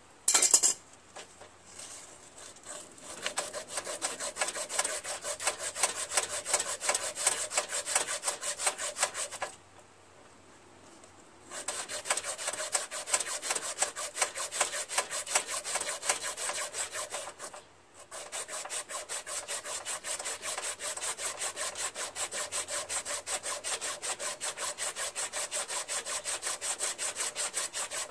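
Hand-sanding rusted metal on a Honda HRZ216 mower's transaxle housing with a small piece of sandpaper: quick, even back-and-forth rubbing strokes, stopping for about two seconds near the middle and briefly again a little later. The sanding is scouring off the rust where the height-adjuster sleeve had seized and stopped the rear wheels rolling backwards. A single sharp clack sounds about half a second in.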